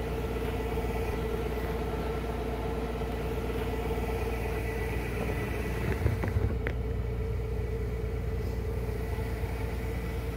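Waukesha positive-displacement must pump running steadily with a constant hum, drawing Pinot Noir must through a large-diameter hose. A few brief knocks about six seconds in.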